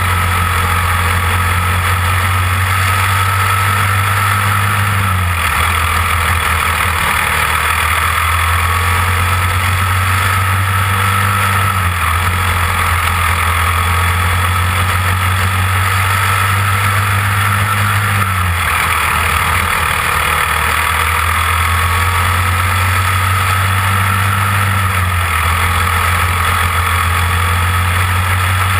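Caged dirt-oval racing kart's engine running hard under race load, heard close up with wind rush on the microphone; the engine note drops briefly a few times as the driver lifts for the turns, then comes back up.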